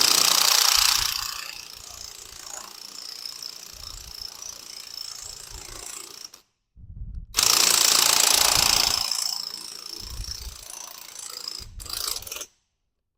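Impact wrench hammering in two bursts, spinning a 28 mm nut off a hydraulic cylinder's piston rod. The first burst comes right at the start and the second about seven seconds in, each lasting a second or two and trailing off into a quieter rattle.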